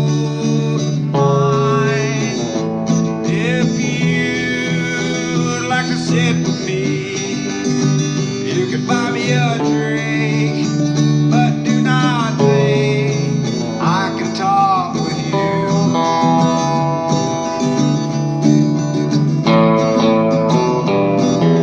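Live country-style guitar music, an instrumental passage in which lead notes bend up and down in pitch over sustained chords.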